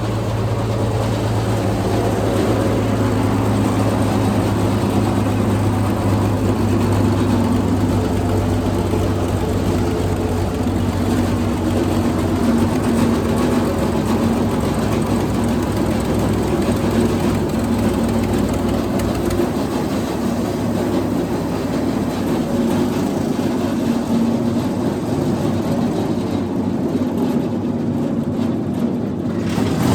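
Wood chipper's spark-ignition engine running steadily, its fuel supply to the carburetor in doubt.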